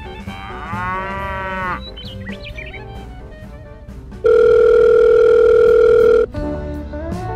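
A cow's moo sound effect over background music. About four seconds in comes a loud, dead-steady electronic phone tone lasting about two seconds, then the music carries on.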